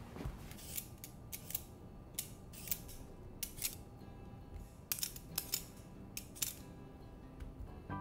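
A vegetable peeler scraping the skin off a raw potato: about a dozen quick, irregular strokes that stop a little before the end.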